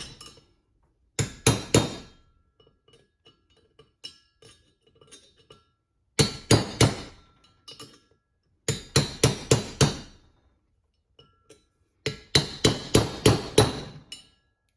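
Hammer blows on a steel punch, driving an outer bearing race out of a Toyota 8-inch differential: sharp metallic strikes about four a second, in four bursts of three to eight blows with short pauses between.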